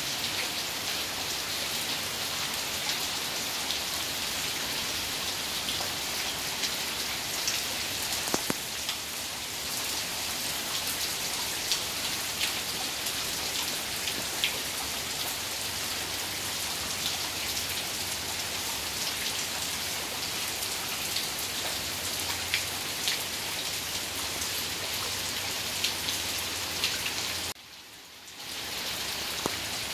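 Heavy downpour of rain falling steadily, with the sharp patter of single drops landing close by. The sound drops out for about a second near the end.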